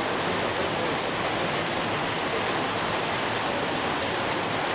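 Water rushing steadily, as of a waterfall.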